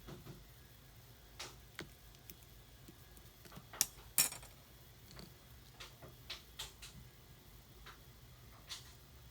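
Clear slime being handled, giving scattered small clicks and pops, with two sharper pops close together about four seconds in.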